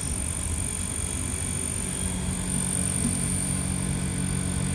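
Electric commuter train running, heard from inside the carriage as it moves past a station platform: a steady low rumble, with a low steady hum joining about two seconds in.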